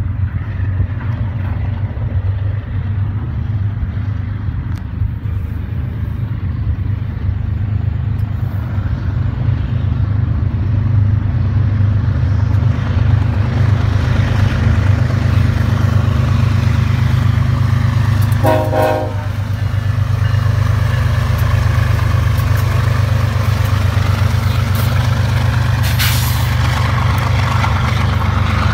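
Two GE diesel-electric freight locomotives, an ES44DC leading and a Dash 9-44CW trailing, running as they approach and pass, with a steady low engine rumble and growing wheel and rail noise. The horn gives one short toot about two-thirds of the way in.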